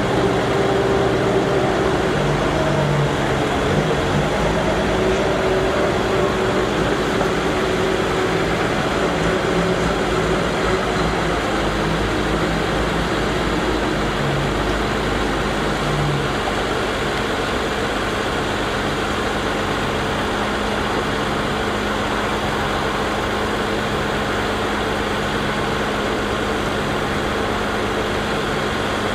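International 4900 diesel truck engine running steadily, powering the hydraulics as the Altec bucket-truck boom is lowered.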